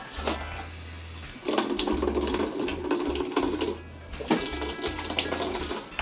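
Liquid poured from a plastic bottle into a plastic bucket, splashing in two pours: the first starts about a second and a half in, the second about four seconds in.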